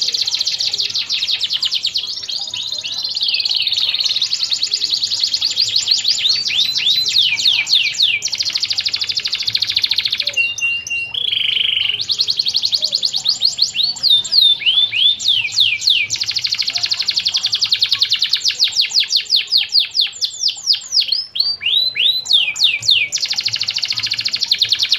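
Domestic canary singing a long, nearly continuous song of fast rolling trills and runs of quick downward-sweeping notes, with a short break about ten seconds in where a brief steady whistle sounds.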